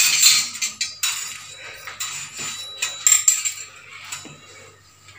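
A little cooking oil heating in an aluminium kadai on a gas stove, crackling and spitting in irregular bursts, loudest at the start.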